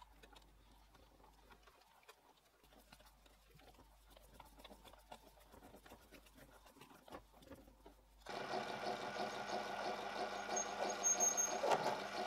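Faint clicks and ticks of a tap cutting threads into a brass part held in a stationary lathe chuck. About eight seconds in, a mini lathe's motor comes in running at speed, a steady hum of several even tones, as a cutting tool turns the brass part.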